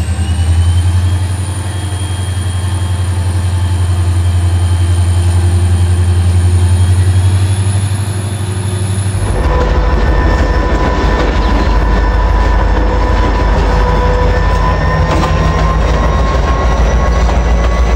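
An EMD 16-645 two-stroke locomotive diesel running hard with a deep drone and a high whine that rises slightly. About nine seconds in, the sound changes abruptly to another diesel locomotive moving along the track: engine noise with wheels on rails, its tones rising slowly.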